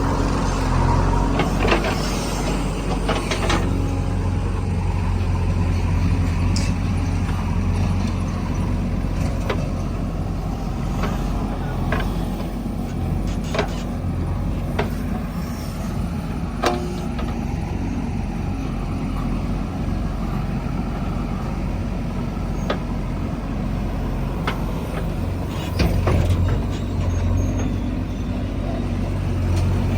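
Heavy diesel engine running steadily under load, with scattered short sharp knocks and clicks and a brief swell in engine level a little before the end.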